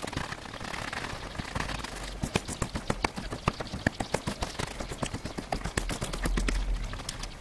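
A long wooden slat beating a snow-covered rug laid on snow: a rapid, irregular run of sharp whacks, several a second, starting about two seconds in.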